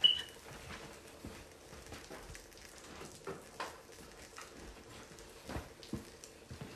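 A brief high tone at the very start, then faint scattered knocks and clicks of someone moving about and handling things out of view in a kitchen.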